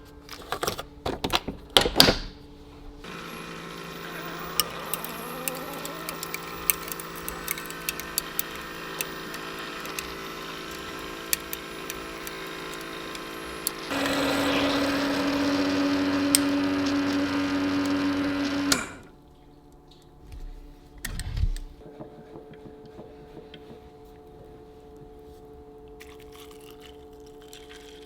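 Keurig K-Mini Plus single-serve coffee maker running a brew cycle. A few knocks are followed by a steady mechanical hum, which turns into a louder, deeper drone partway through and then cuts off suddenly, followed by a single thump.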